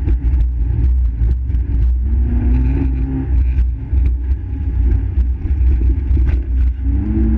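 Fiat Seicento rally car's engine heard from inside the cabin at speed, its note rising about two seconds in and dropping again, over a heavy low rumble of road and wind noise. Frequent short sharp knocks and rattles come through as the car runs over the rough concrete.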